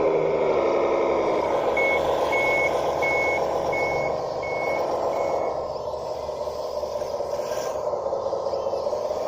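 1:12 scale model bulldozer running, its engine sound dropping in pitch in the first second or so and then going on steadily. Six evenly spaced high reversing beeps sound over about four seconds, starting about two seconds in.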